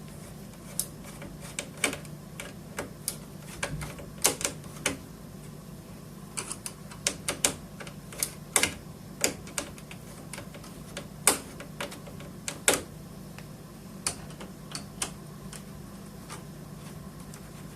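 Screwdriver loosening the heatsink retaining screws on a computer motherboard: sharp, irregular clicks, some in quick runs, over a low steady hum. The screws click when they come free.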